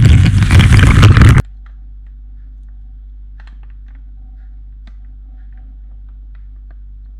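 Loud rustling and clattering of the camera and milk carton being handled right against the microphone, cutting off suddenly about a second and a half in. After that, only a low steady hum with a few faint scattered ticks.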